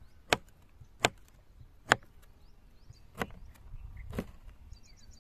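Kitchen knife chopping through slices of firm green produce onto a wooden cutting board: about five sharp knocks, roughly one a second, the third the loudest.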